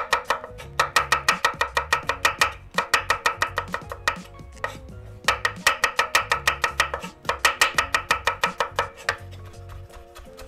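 Chef's knife rapidly chopping garlic on a wooden cutting board: quick, even knocks of the blade on the board, about six a second, in four runs with short pauses, stopping about nine seconds in.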